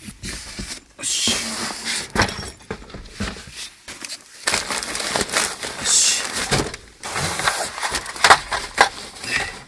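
Gear being handled and moved about inside a van: continual rustling broken by many short knocks and clicks.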